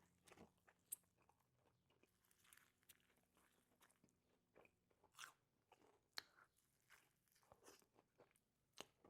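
Faint close-up biting and chewing of crunchy fast food, heard as scattered, irregular crisp crunches and mouth clicks.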